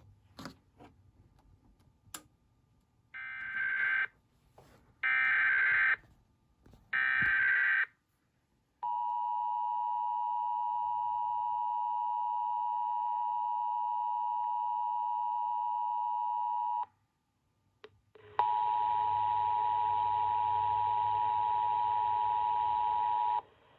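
Emergency Alert System tones: three one-second bursts of SAME header data, a second apart, then the steady two-tone attention signal held for about eight seconds. After a short gap, a second steady tone with hiss behind it sounds for about five seconds.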